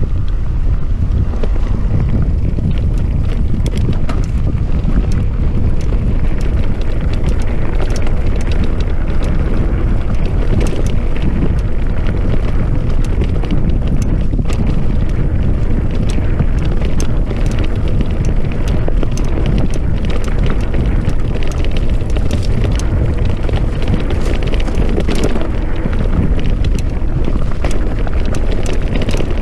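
Wind buffeting the microphone in a steady low rumble while a mountain bike is ridden along a rough trail, with frequent small rattles and knocks from the bike and tyres.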